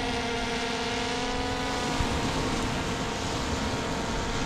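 An engine running with a steady hum over an even rushing noise. The hum fades into the noise about two seconds in.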